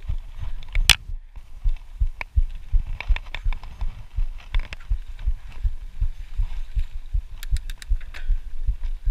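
Mountain bike rolling fast over a bumpy dirt singletrack, heard from a chest-mounted camera: a stream of low, irregular thumps as the bike and camera jolt over the ground, with sharp rattling clicks now and then and a quick cluster of them near the end.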